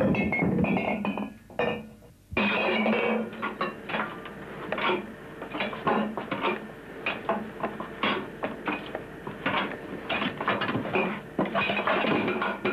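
Glass jars clinking and knocking against one another in a dense, irregular clatter, with a short lull about two seconds in.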